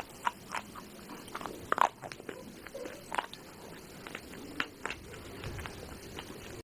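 Biting and chewing crunchy pieces of baked clay pot: irregular sharp crunches and crackles, close to the mouth.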